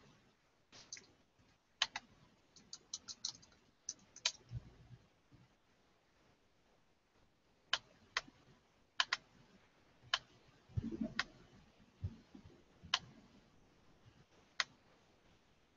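Sparse, sharp single clicks at irregular intervals over a very quiet line, with a quick run of clicks about three seconds in and a short low sound about eleven seconds in.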